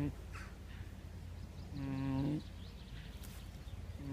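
Pig snoring in a steady rhythm: one pitched, droning snore about two seconds in and another starting near the end, about one every two seconds, over a steady low hum.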